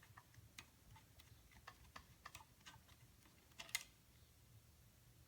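Faint, irregular clicks and taps of small metal parts as the loose spring detensioner is worked out of an Atlas 73 drill press head, about a dozen in all, with a sharper double click about two-thirds through.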